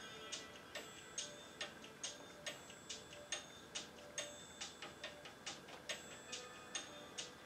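Quiet background music built on a steady ticking beat, a little over two ticks a second, with faint sustained notes under it.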